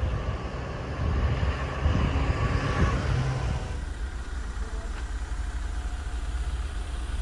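Motor vehicle running with a steady low rumble, a little louder in the first few seconds.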